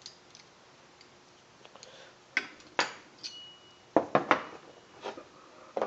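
Small metal parts and tools being moved around on a table: a handful of separate knocks and clinks, which begin about two seconds in.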